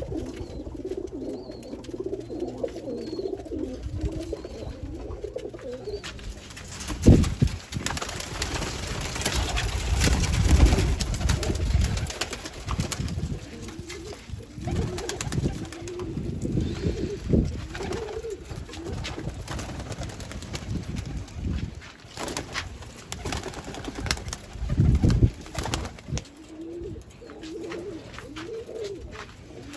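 Pakistani flying pigeons cooing over and over in low, wavering calls. A few louder dull thumps and rustling noises break in, the loudest about a quarter of the way in and again near the end.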